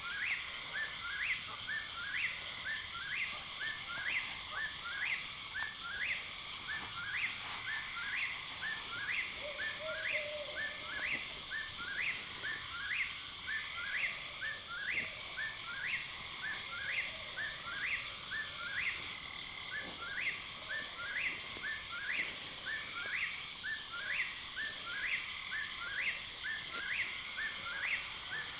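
A night bird repeating the same short, rising call about once a second, over a steady high drone of a night chorus.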